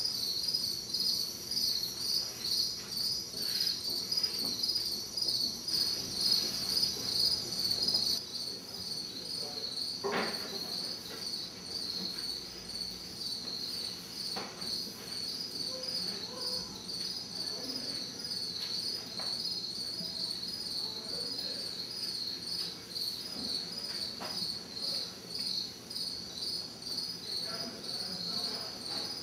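Crickets chirping in a steady rapid pulsing, about three chirps a second, with a single sharp knock about ten seconds in and a few fainter knocks.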